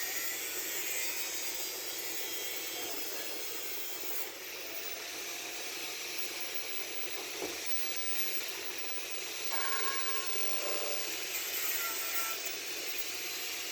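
Angle grinder with a cut-off disc cutting through a hydraulic hose, a steady hissing grind.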